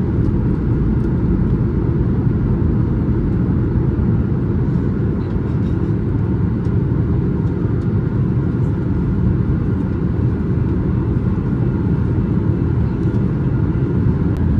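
Steady low rumble of a Boeing 737-800's CFM56 engines and the airflow around the fuselage, heard inside the passenger cabin during descent.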